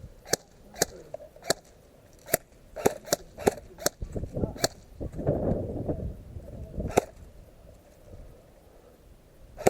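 Airsoft guns firing single shots: about ten sharp cracks at uneven intervals, most of them in the first five seconds. Around the middle there is a stretch of low rustling noise.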